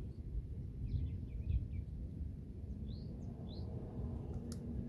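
Birds chirping in short scattered calls over a steady low background rumble, with one sharp click near the end.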